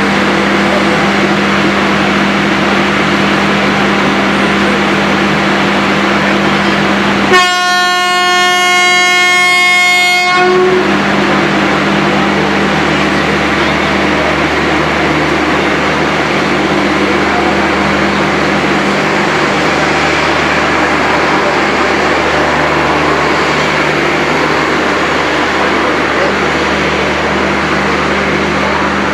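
WAP-4 electric locomotive pulling away with a train, its running hum and rush steady throughout. About seven seconds in it sounds one long horn blast of about three seconds.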